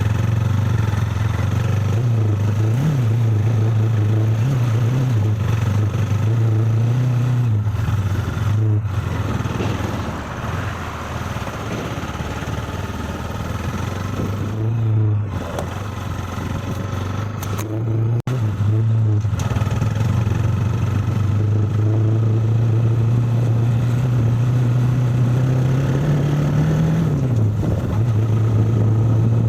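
A motor vehicle's engine running steadily while driving on a rough road, its pitch rising briefly a few times and easing off for a while midway. An occasional sharp knock is heard.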